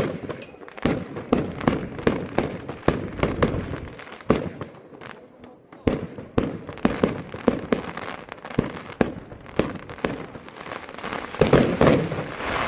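Fireworks going off: a rapid, irregular run of bangs and cracks several times a second, with the loudest cluster of blasts near the end.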